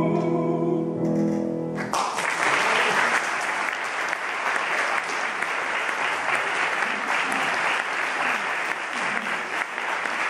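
A tenor's final held note over a sustained piano chord, cut off just under two seconds in, and then an audience applauding steadily.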